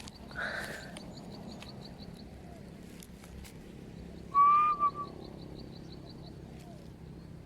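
A bird's short, clear whistled call about four and a half seconds in: one note with a brief second note after it. Under it runs a faint, fast, high ticking.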